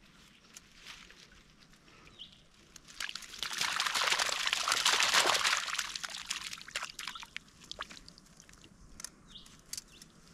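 Water streaming and splashing as a wet yabby drop net is emptied back into a muddy dam. A rush of splashing starts about three seconds in and lasts about three seconds, with small scattered splashes and clicks before and after it.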